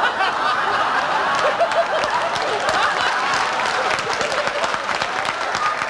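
Studio audience laughing, calling out and applauding, many voices and hand claps overlapping in a steady din.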